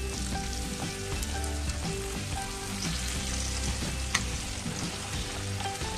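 Hot oil sizzling in a kadai as fresh coriander leaves go into the fried peanut and dal tempering, with a single sharp tick about four seconds in. Background music with soft bass notes plays underneath.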